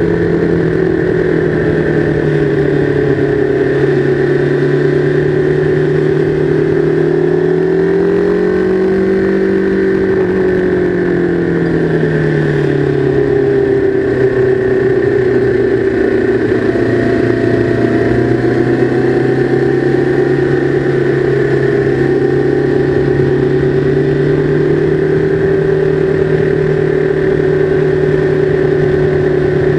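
Sport motorcycle's engine heard from on board while riding a track in third gear: a steady drone that climbs in pitch about eight seconds in, falls back over the next few seconds, then holds level.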